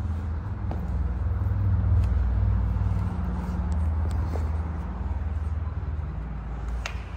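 A loud, deep low rumble whose pitch shifts in steps about once a second, with a few faint light clicks over it.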